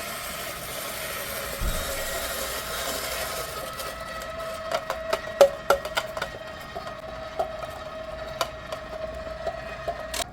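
KitchenAid stand mixer running with a slicer/shredder attachment, grating cheese: a steady motor hum under a rasping, scraping noise. From about four seconds in there is a run of sharp clicks and knocks.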